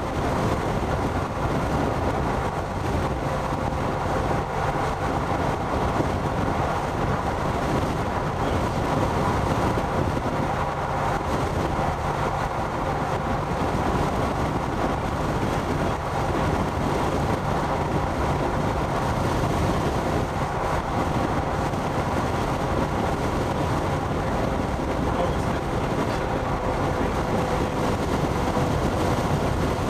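Vehicle driving, heard from inside: steady road and engine noise with a faint, even hum that does not change.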